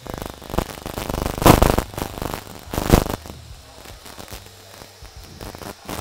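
Aerosol hairspray can sprayed in a run of short hisses, loudest about a second and a half in and again near three seconds, then stopping.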